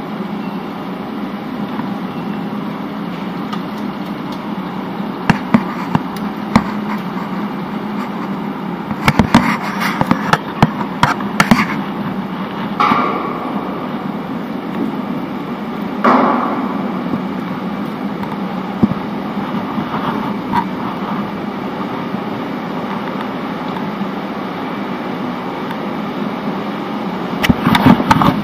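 Steady low hum of a ferry's enclosed vehicle deck, with scattered sharp clacks and metallic knocks. The knocks come in clusters about nine to twelve seconds in and again near the end.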